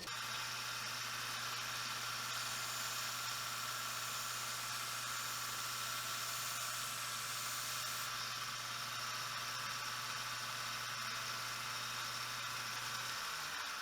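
Wilton belt sander running steadily, its electric motor humming under the hiss of the abrasive belt as a knife blade is sharpened on a fine-grit belt. Near the end the motor is switched off and the hum stops.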